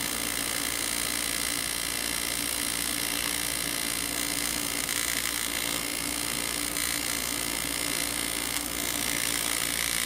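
TIG welding arc running steadily on an aluminum BMW S50 cam tray as filler rod is fed in to build up weld material.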